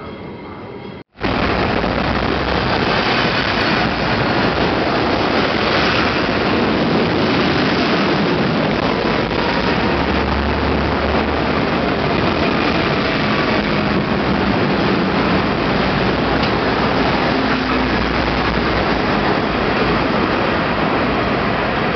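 Busy city street traffic noise with double-decker buses and cars passing, starting abruptly about a second in and staying loud and steady. Deeper engine rumbles swell around ten seconds in and again near eighteen seconds.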